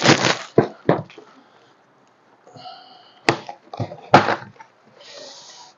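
Plastic wrapping crinkling and rustling as a boxed cutlery set is unwrapped and opened, with a few sharp clicks from the box being handled.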